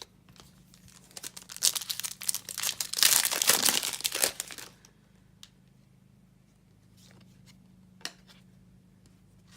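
Foil wrapper of a trading card pack being torn open and crinkled, starting about a second and a half in and lasting about three seconds, then a few faint clicks.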